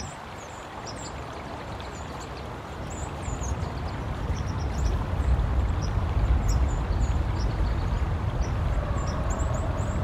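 Outdoor ambience: a low rumble that grows louder about three seconds in, with many faint, short, high bird chirps scattered over it.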